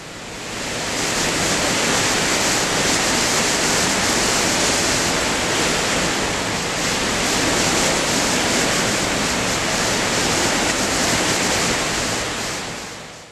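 Hurricane Ike's high wind blowing through a tree, a loud, steady rush of noise that fades in at the start and fades out near the end.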